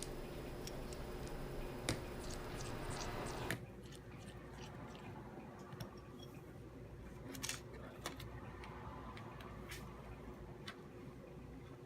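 Scattered light clicks and taps from small laptop parts being handled. A steady background hum drops away suddenly about three and a half seconds in.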